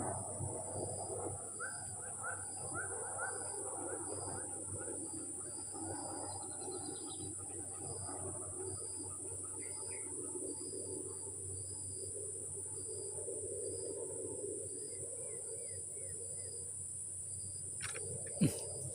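Insects droning steadily and chirping in a regular pulse, over a low, steady rumble. A short sharp knock comes near the end.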